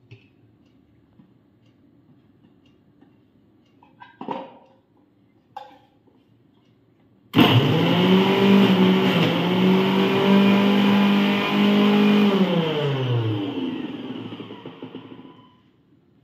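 A few light knocks and clicks, then about seven seconds in a Preethi Zodiac mixer grinder's motor starts suddenly and runs with a steady whine, its pitch dipping briefly as it works the fruit in the juicer jar. It is then switched off and winds down with a falling pitch.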